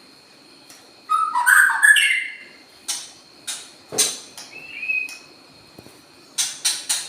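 A pet songbird calling: a warbling call about a second in, then sharp single chips, a short whistled note around five seconds in, and a quick run of chips near the end.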